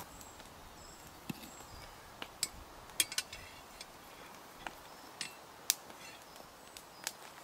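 Scattered light metallic clinks and knocks, some with a brief ring, as the hook and iron rod of a steel campfire pot hanger are fitted together. Faint high bird chirps come in the first second or so.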